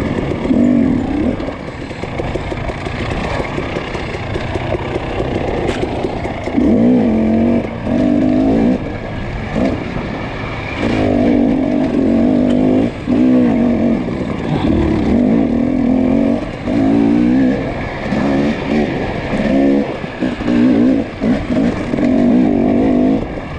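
Off-road dirt bike engine revving up and down under repeated bursts of throttle, the pitch rising and falling as it is ridden hard along the race trail.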